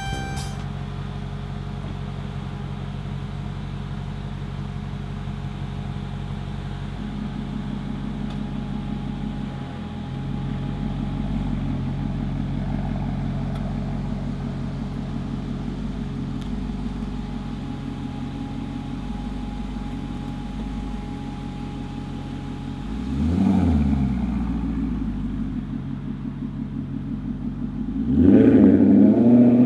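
A car engine idling steadily, blipped once about three quarters of the way through, its pitch rising and falling back, then revved louder near the end.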